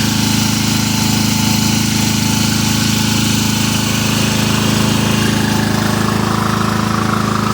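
Riding lawn mower engine running steadily at a fast idle, its exhaust pulsing out of the muffler strongly enough that the owner takes it for good compression.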